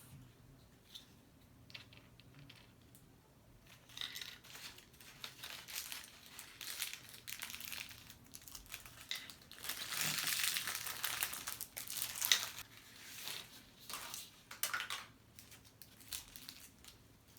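Plastic wrapping crinkling and tearing as a small toy surprise packet is opened by hand, in irregular bursts that begin about four seconds in and are loudest around the middle.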